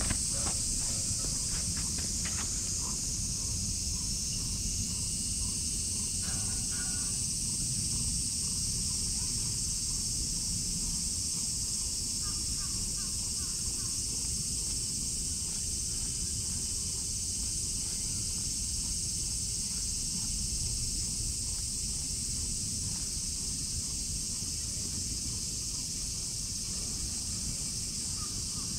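Steady, high-pitched drone of insects, with a low rumble beneath it and a few faint clicks near the start.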